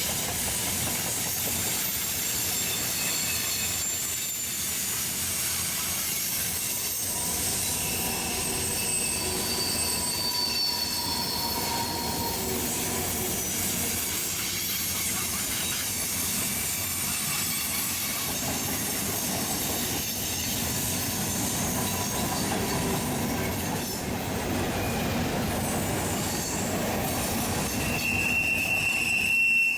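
Railroad cars rolling past, their steel wheels squealing against the rails in thin high tones that come and go over a steady rolling rumble. A louder, sharper squeal sets in near the end.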